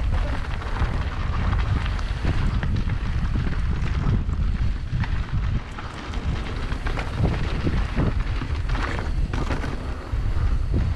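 Wind buffeting the camera microphone of a moving mountain bike, a heavy low rumble, with scattered clicks and rattles from the bike.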